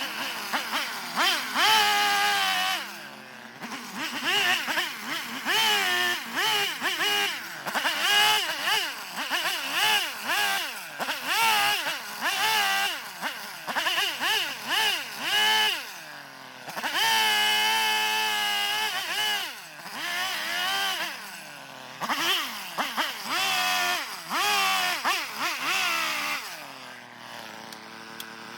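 Gas chainsaw carving eastern red cedar, its engine revved up and down in short bursts over and over, and dropping to a steady idle near the end.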